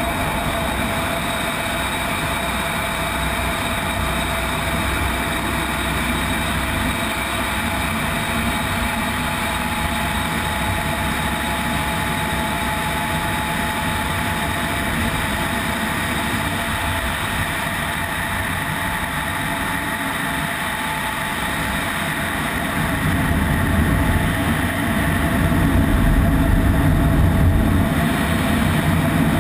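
F-16 jet fighter heard from inside the cockpit in flight: a steady mix of engine and airflow noise with several constant whining tones. The low rumble grows louder about 23 seconds in.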